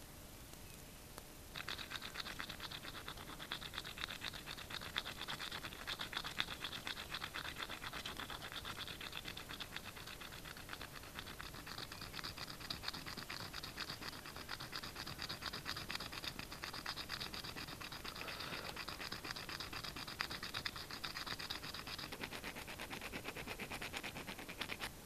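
Steady, rapid scratching of a hand tool worked over a hard surface. It starts about a second and a half in and stops just before the end.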